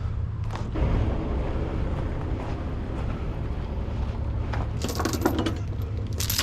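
Kenworth T660's diesel engine running steadily at a low idle-like hum, with metallic clinking and rattling about five seconds in.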